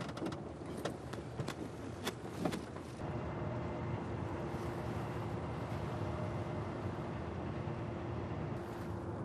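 A few sharp clicks and knocks in a truck cab, then a truck engine running steadily with a low rumble and a held hum.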